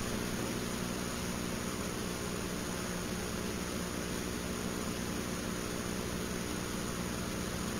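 Steady hiss with a low, even hum beneath it.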